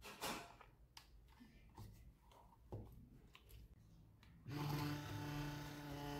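Faint clicks and rustles of wire leads being handled and clipped on, then about four and a half seconds in a 12-volt DC motor starts and runs with a steady hum on a 12 V supply.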